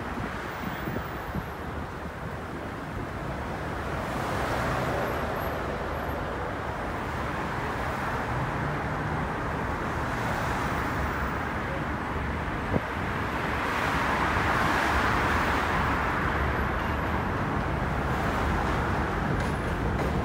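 Steady road traffic rushing across a steel bridge, with the rumble of an approaching subway train slowly building beneath it and growing louder toward the end. A single sharp knock about two-thirds of the way through.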